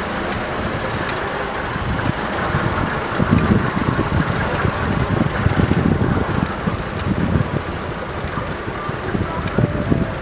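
Steady street traffic rumble, growing louder and gustier from about three to eight seconds in.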